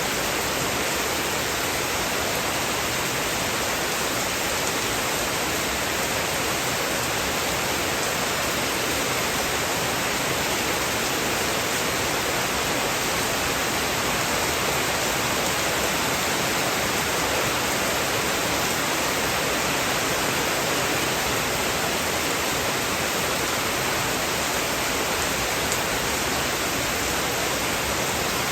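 Heavy rain falling in a steady, even hiss, with no thunder.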